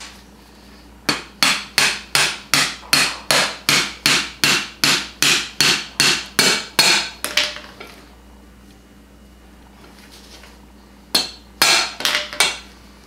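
Hammer driving a new sleeve into a UTV front upper A-arm's suspension bushing. It strikes about eighteen times at a steady rate of about three a second, then after a pause strikes three more times.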